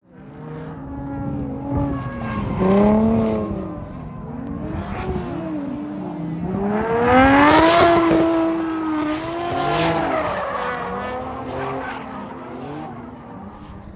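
Car engines revving hard, their pitch repeatedly climbing and falling, with more than one engine note overlapping; loudest about halfway through.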